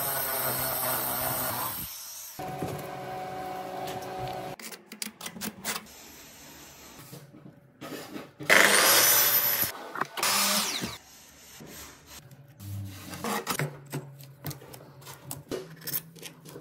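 A diamond core drill bit cutting a hole through a ceramic wall tile for about two seconds, then short clips of tiling work: rubbing, scraping and clicking of tiles and trim, with a louder two-second burst of power-tool noise about halfway through.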